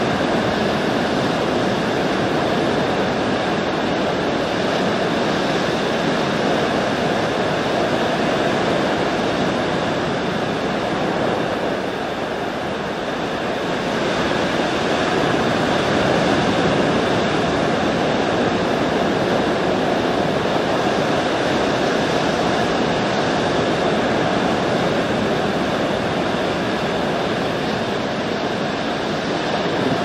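Ocean surf washing steadily, swelling and easing slowly, with a brief lull about twelve seconds in.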